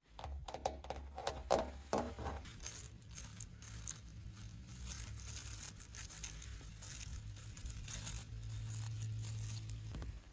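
Close-up handling of a textured object: a few light taps and clicks in the first two seconds, then soft rubbing and scraping with a crinkly rustle, over a low steady hum.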